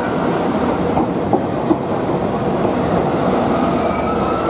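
Passenger train rolling past at close range as it pulls into the station: a steady rumble of wheels on rails, with a few sharp clicks over rail joints. A thin squeal comes in near the end as the train slows to stop.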